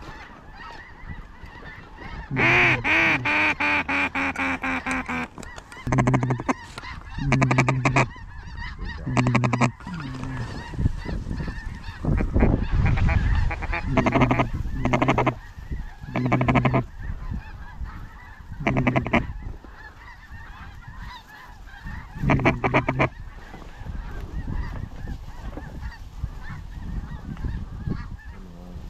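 Loud, low, nasal duck quacking in strings: a long run of quacks about two seconds in, then short strings of quacks every second or few.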